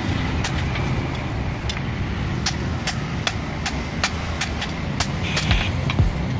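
Hand hammer striking a hot steel billhook blade on a steel anvil: sharp metallic strikes at an irregular pace of about two or three a second, over a steady low rumble.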